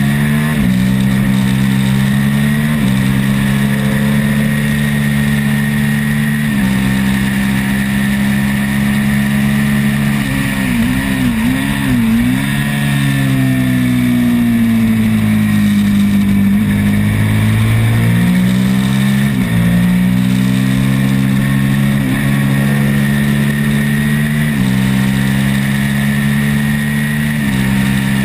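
Onboard sound of a twin-cylinder race motorcycle engine under hard acceleration, its pitch stepping with each gear change. About ten seconds in, the engine note weaves and falls as the bike slows for a corner. Then it pulls up through the gears again, all over steady wind rush on the microphone.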